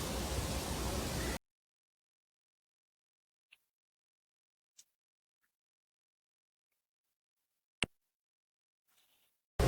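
Steady noisy ambience cuts off abruptly about a second and a half in, leaving dead silence broken only by a couple of faint clicks and one sharper click near eight seconds. The noise comes back just as abruptly at the very end.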